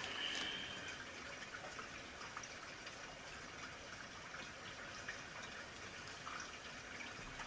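Faint steady hiss of room tone, with no distinct sound events.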